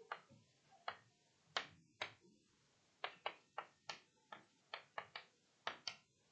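Chalk writing on a chalkboard: a string of faint, short, irregular taps and ticks as the chalk strikes and drags across the board.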